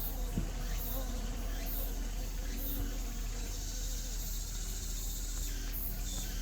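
Buzzing of Korean native honeybees (Asian honeybees) and drones flying around the hive entrance, one bee gliding past close about half a second in. A high insect chirp pulses about once a second behind it.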